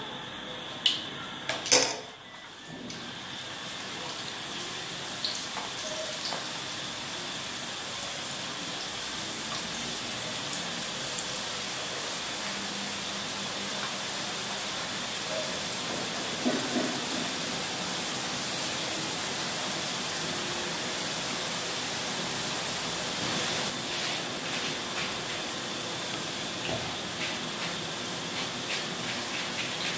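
Boondi (drops of gram-flour batter) frying in hot oil in a pan: a steady sizzle with small crackles that settles in about three seconds in, after two sharp knocks near the start.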